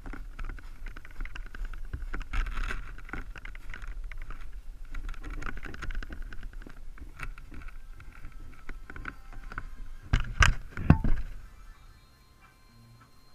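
Boots crunching on snow and the rustle of a foam RC plane being carried, with scattered small knocks from its airframe. About ten seconds in come a few loud knocks as the plane is set down on the snow; after that it is much quieter.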